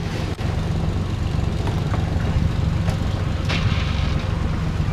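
Boat's outboard motor running steadily, a low drone heard from inside the wooden cabin, with a few light knocks over it.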